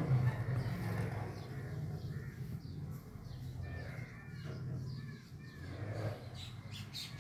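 Birds calling in the background, a run of short, repeated arched calls, over a steady low hum.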